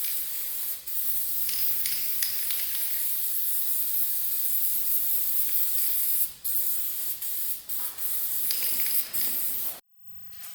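Steady spray-like hiss with a few brief breaks, cutting off abruptly near the end.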